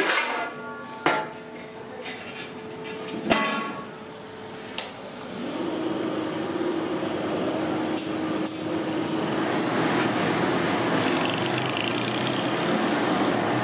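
Large aluminium pots and lids knocked against each other as they are moved, giving three clanks that each ring on for a second or two in the first few seconds. From about five seconds in, a steady hum with a rushing noise takes over as the fire under the upturned aluminium bowl flares up.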